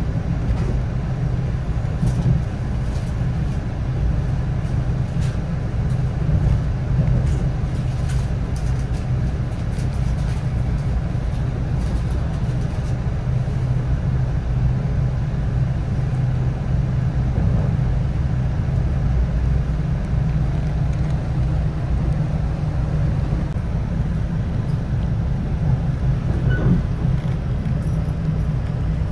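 Steady low rumble of a moving electric commuter train heard from inside the passenger car: wheels running on the rails, with faint scattered clicks.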